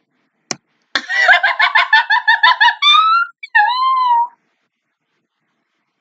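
A woman's burst of laughter in quick rhythmic pulses, breaking into two high-pitched squealing cries, after a short click just before it starts.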